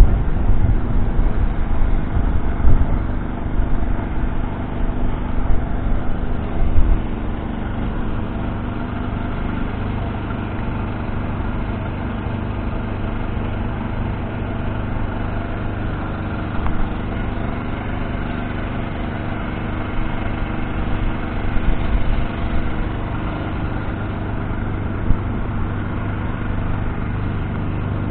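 John Deere 6215R's 6.8-litre six-cylinder diesel engine running steadily with a deep, even drone. It sounds louder and more uneven with low rumbles through the first seven seconds and again briefly a little past twenty seconds.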